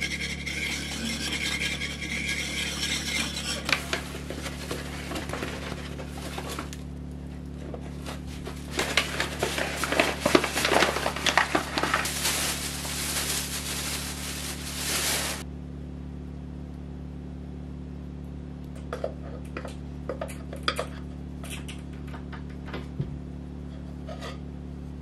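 A Danish dough whisk scraping and stirring sourdough batter in a ceramic mixing bowl, then a plastic bag rustling loudly for several seconds about a third of the way in, followed by scattered light taps and clinks. A running generator hums steadily underneath.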